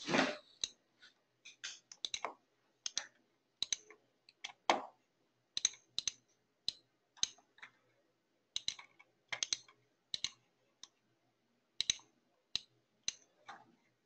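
Irregular clicking of a computer mouse and keyboard: many short, sharp clicks, often in quick pairs, with pauses between them.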